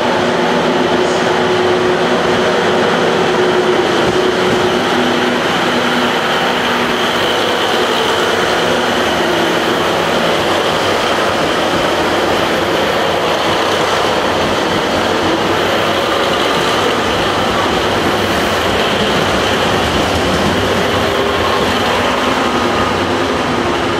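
JR West KiHa 189 series diesel express railcar's engines running at a steady pitch, then giving way to the dense noise of the train pulling out and its cars rolling past.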